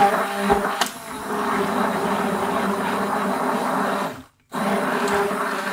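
Stick blender running in a bowl of thick cold-process soap batter, mixing in colour with a steady whir; it cuts out for a moment about four seconds in, then runs again.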